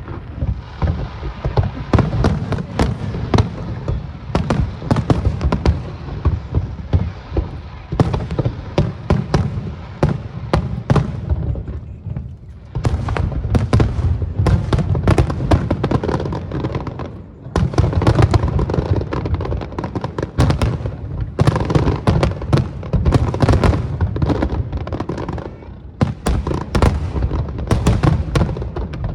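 Aerial fireworks show: a dense, continuous barrage of shell bursts, bangs and crackling, with three brief lulls.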